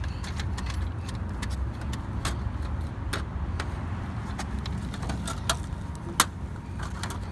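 Light clicks and knocks of a plastic flap on a dispensing machine's pickup slot being pushed and handled, with a sharp knock about six seconds in. A steady low traffic rumble runs underneath.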